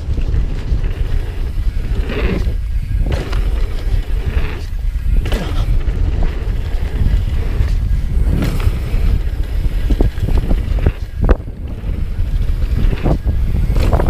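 Wind buffeting the microphone of a camera on a downhill mountain bike, with the rumble of tyres on a dirt trail and irregular knocks and rattles as the bike rides over bumps.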